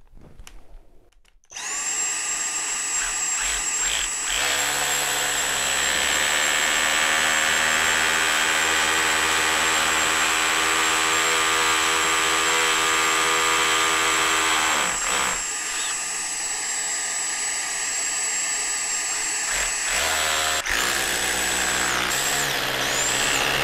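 Bosch SDS hammer drill with a masonry bit boring into a brick wall, steady for long runs with a short dip about fifteen seconds in and a brief break near twenty-one seconds. A cordless vacuum runs alongside with a high, steady whine from about a second and a half in, catching the dust at the bit.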